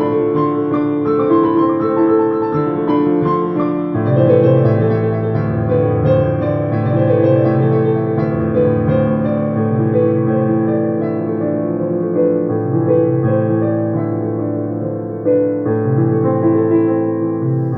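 Piano music, slow held notes and chords.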